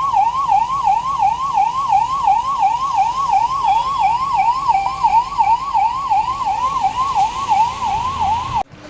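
Electronic emergency-vehicle siren on a fast yelp, its pitch sweeping up and down about four times a second. It stops abruptly near the end.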